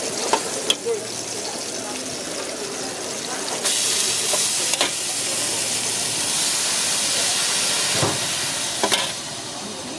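Shredded cabbage and greens hitting an oiled hot wok. A loud sizzle starts suddenly about four seconds in and holds until near the end. A metal spatula scrapes and clinks against the pan several times.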